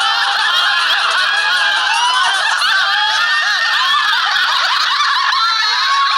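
Many voices laughing together: a dense, continuous tangle of high-pitched cackles and squeals with no music underneath.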